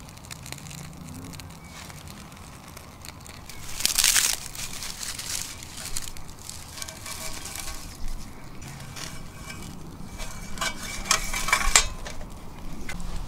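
Handling noises: a loud scrape or crunch about four seconds in, then light clinks of stainless steel firebox parts with a brief ringing, and a quick run of sharp clicks and rustles near the end.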